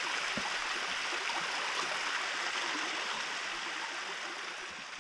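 Steady rush of running water, even and unbroken, easing slightly in level towards the end; no engine is running.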